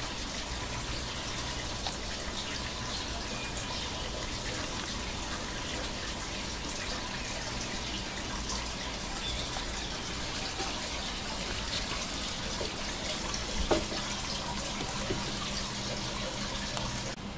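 Steady rush of running water from a garden water feature, with one brief knock near the end.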